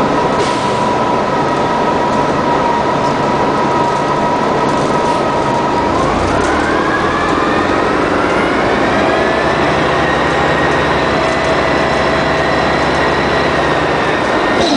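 1999 Orion V CNG bus with its Detroit Diesel Series 50G natural-gas engine and Allison World B400R transmission running. A steady drivetrain whine rises in pitch about six seconds in and then levels off, while the engine's low rumble grows stronger.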